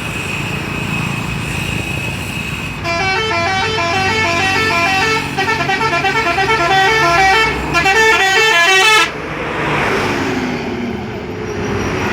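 Telolet horn on a Puspa Jaya bus: a musical multi-tone air horn playing a quick stepping melody of several notes at once, starting about three seconds in, pulsing in the middle and cutting off suddenly about nine seconds in. Road traffic noise runs under it and carries on after it.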